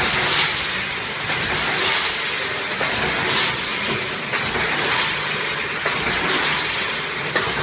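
Packaging-strap production line machinery running steadily. It makes a loud mechanical din with a hiss that swells and fades about every second and a half, and a few faint clicks.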